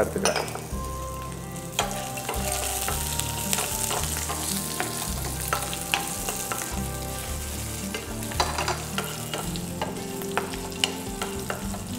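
Shallots, green chillies, curry leaves and dal sizzling in hot groundnut oil in a stainless steel pan. A wooden spatula stirring them makes scattered scrapes and taps against the pan over a steady hiss.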